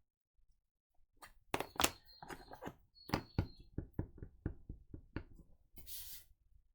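Two sharp plastic clacks, then a run of light knocks about three a second, a stamp on an acrylic block being tapped onto an ink pad to ink it. A short rustle follows near the end.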